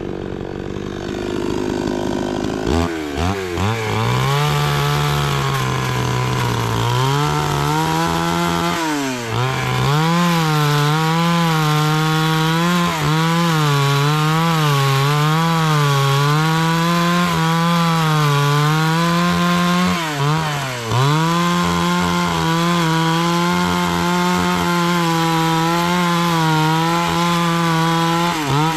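Gasoline two-stroke chainsaw cutting into a thick round slab of wood. It revs up about three seconds in, and its engine pitch wavers up and down as the chain bites into the wood, dropping sharply a few times.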